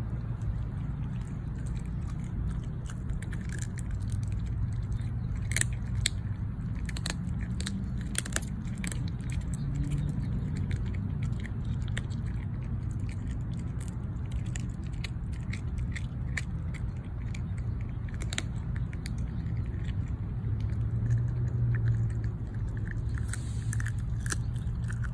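A dog chewing a raw chicken leg quarter, with scattered sharp crunches as its teeth work through the bone and gristle, clustered in runs. A steady low hum underneath.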